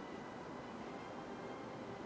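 Faint steady hiss and low hum of workshop room tone, with no distinct event.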